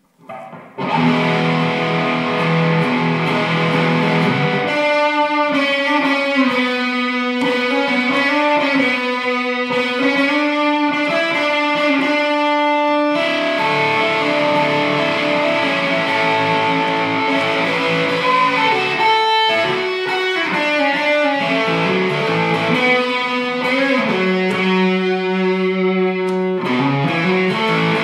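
Electric guitar solo, starting about a second in, with held notes that bend and slide in pitch.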